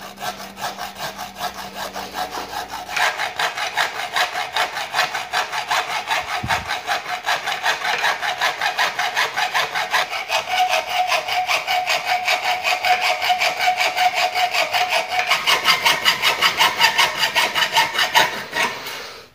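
Hacksaw cutting through a spoon handle clamped in a vise: quick, even back-and-forth strokes, several a second, that stop shortly before the end as the handle is cut through.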